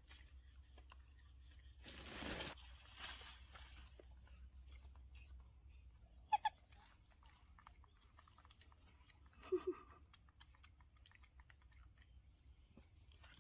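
Faint crunching and small clicks of a baby macaque chewing bits of food, with a rustle about two seconds in and two brief high squeaks later on.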